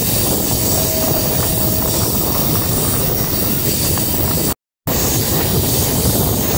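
MEMU train in motion heard from on board: a steady loud rush of wheel, rail and wind noise. It breaks off into silence for a split second about two-thirds of the way through, then resumes.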